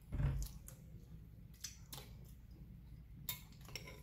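Metal spoon clicking against a glass cereal bowl as cereal and milk are scooped: several light, separate clinks, a few with a brief ring near the end. A short low murmur right at the start.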